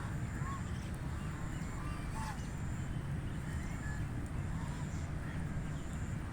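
White Pekin ducks calling faintly over a steady low rumble, with a few short separate calls and a thin high tone that comes and goes.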